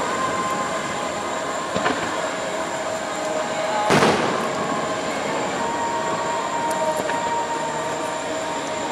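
Fireworks display going off: a continuous dense wash of sound, with a smaller burst about two seconds in and a loud burst about four seconds in.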